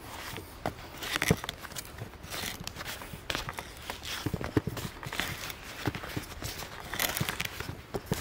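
Auger bit turned by hand, boring into a log: the wood crunches and creaks in irregular clicks as curled shavings are cut out of the hole.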